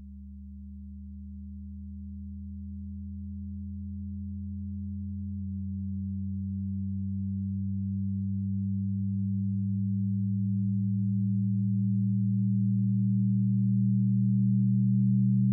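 Electronic drone of several layered low sine tones, swelling steadily louder. About a third of the way in one tone steps slightly lower in pitch, and the lowest tone fades as a slightly higher one grows.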